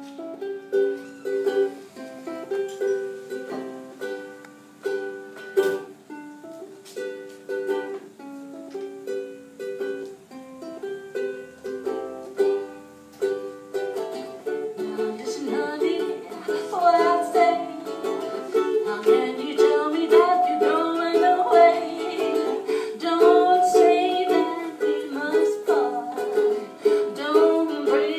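Solo ukulele playing a slow prelude, single notes picked one at a time, then strummed fuller and louder from about halfway.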